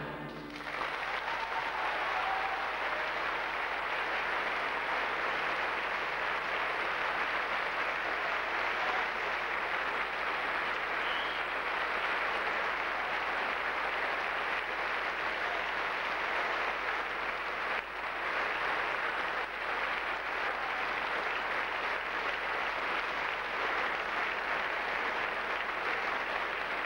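The orchestra's final chord breaks off in the first half-second. A full opera-house audience then applauds steadily, an even unbroken clapping.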